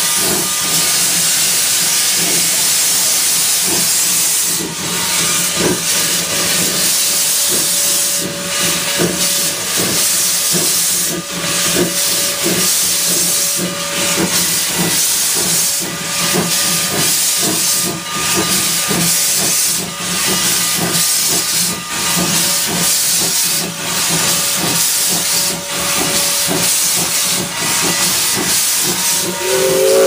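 Steam locomotive running with a steady loud hiss of steam. The hiss dips briefly about every two seconds.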